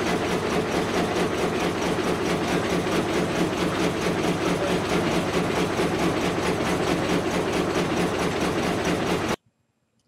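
Old frame sawmill (gang saw) running unloaded: a steady, fast rhythmic mechanical clatter over a steady hum. It cuts off abruptly near the end.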